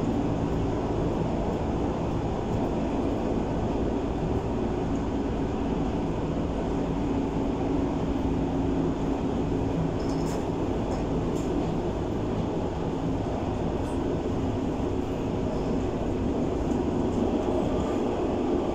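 Berlin U-Bahn class H train running through a tunnel, heard from inside the car: a steady rumble of wheels and running gear with a constant low hum from the drive.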